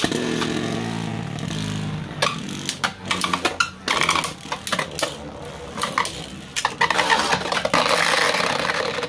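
Two Beyblade spinning tops whirring on a plastic stadium floor. The whine falls in pitch just after launch, followed by repeated sharp clacks as the tops collide and scrape against each other and the stadium walls. One top is knocked out into a stadium pocket.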